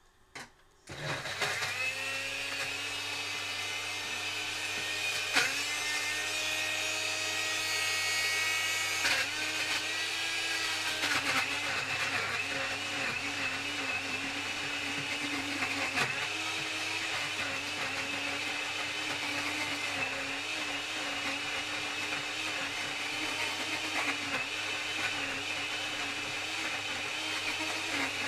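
Morphy Richards Easy Blend Deluxe blender switching on about a second in after a click and running on speed 2, chopping cubed pineapple with its four-blade quad blade. A loud, steady motor whir whose pitch wavers as the fruit loads the blade, with a few sharp knocks of chunks against the jug.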